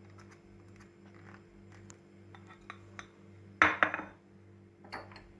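Scattered light clinks of utensils against a stew pot as chopped onions are put into it, with one louder clatter about three and a half seconds in. A steady low hum lies underneath.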